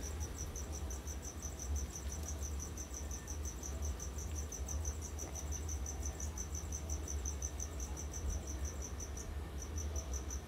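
Crickets chirping in a fast, even pulse, about five or six chirps a second, with a short pause near the end. A low steady hum runs underneath.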